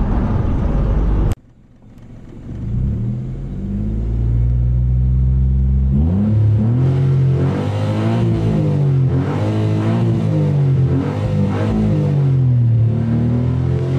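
Car engine and road noise from inside a moving car, cut off abruptly about a second in. Then a Perodua Kenari's engine idling steadily, heard in the cabin, and from about halfway revved up and down several times through an exhaust reworked for a 'pom pom' note.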